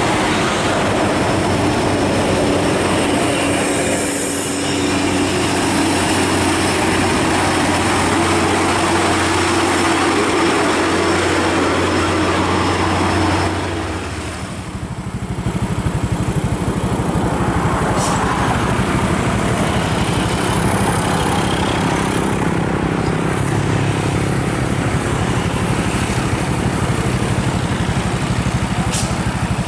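Heavy diesel trucks running in traffic, a steady low engine drone. The sound changes abruptly about halfway through, to a different engine note.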